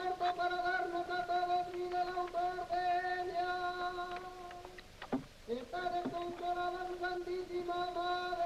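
A woman singing in long, steady held notes, with a short break for breath about five seconds in before the next note.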